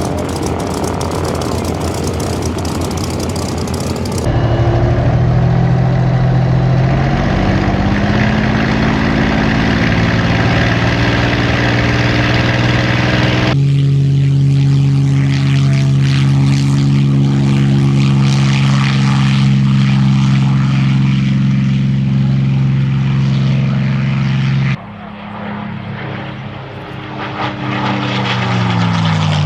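Supermarine Spitfire Mk.XVI's Rolls-Royce Merlin 66 V12 engine running, in several shots that change level and pitch abruptly. It is quieter about 25 seconds in, and its pitch falls near the end.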